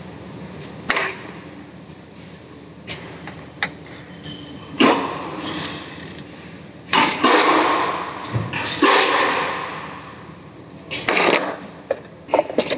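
Intermittent clicks, knocks and clatter of hands-on work with tools and parts, with a rushing noise lasting a couple of seconds a little past the middle.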